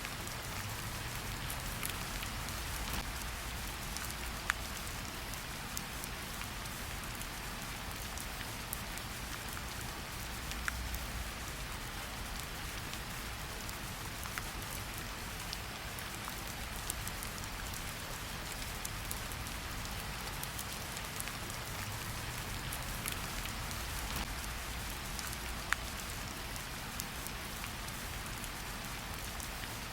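Steady rain falling in a forest, an even hiss of drops with occasional sharper individual drop ticks standing out.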